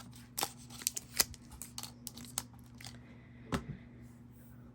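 Small clicks and light rustles of the Apple Pencil and its packaging being handled, several in quick succession in the first two and a half seconds, then one louder click about three and a half seconds in.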